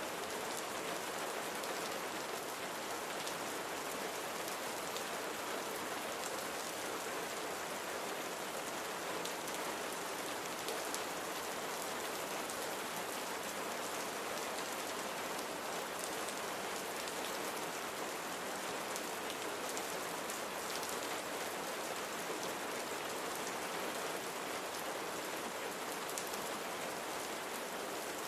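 Steady rain falling on a surface, an even wash with faint individual drop ticks.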